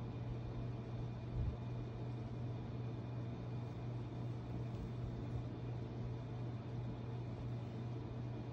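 A steady low mechanical hum over a faint hiss, with a single soft low knock about a second and a half in.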